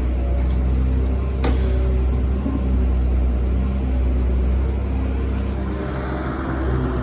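Doosan 140 excavator's diesel engine running steadily, with a single sharp knock about a second and a half in and a hiss that comes in near the end.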